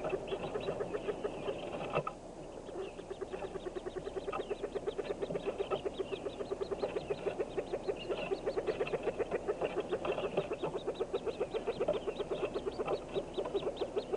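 Hooded mergansers calling inside a wooden nest box: a fast, even run of short clucking notes, about seven a second, with higher peeping notes over it. The calling dips briefly about two seconds in, then carries on steadily.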